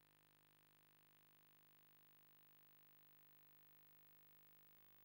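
Near silence: a faint, steady hiss and hum of the recording.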